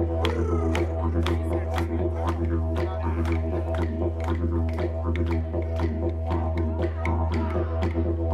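Didgeridoo playing a steady drone with shifting overtones, over a steady beat of sharp clicks about three times a second.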